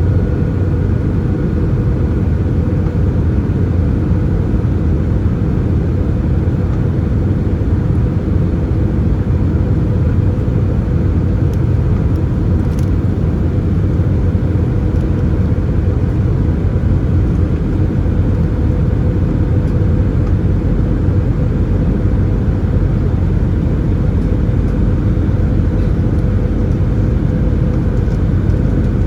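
Steady cabin drone inside an Airbus A320-214, its CFM56 engines and the airflow heard from a window seat as an even low rumble with a faint steady hum.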